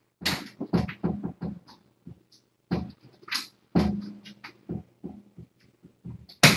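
A quick, irregular series of knocks and clatters, like objects being handled and set down, with the loudest knock near the end.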